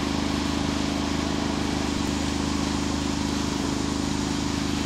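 Steady, unchanging drone of a running engine.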